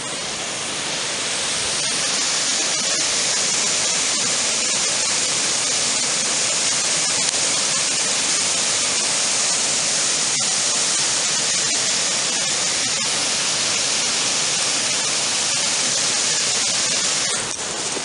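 Mountain waterfall: water pouring over a rock ledge in several strands and crashing onto the rocks below, a loud steady rush. It grows louder over the first two seconds and drops back slightly near the end.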